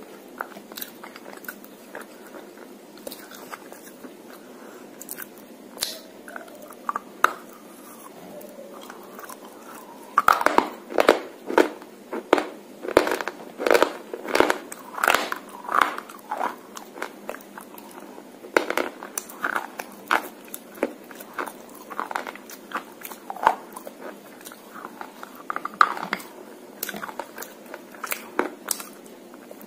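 Slate pencil dipped in red clay paste being bitten and chewed close to the microphone: sharp, loud crunches, few at first, then a quick run of them about ten seconds in, continuing more sparsely with quieter chewing between.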